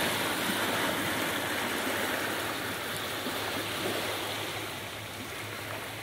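Sea waves washing on the shore, a steady rushing that slowly fades as a wave draws back.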